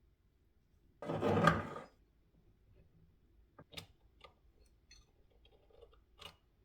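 Small tool parts being handled on a workbench: a burst of dense noise lasting about a second, then several light clicks and taps.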